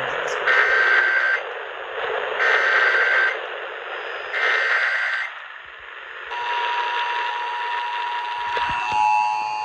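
Emergency Alert System SAME header, broadcast over AM radio: three short bursts of warbling digital data tones about two seconds apart, over radio hiss. About six seconds in, the steady EAS attention tone starts and holds.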